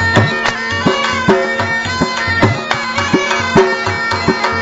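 Background music with a steady drum beat under a sustained melody.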